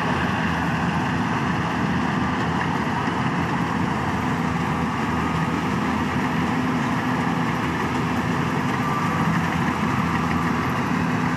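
Yanmar rice combine harvester's diesel engine running steadily at an even pitch.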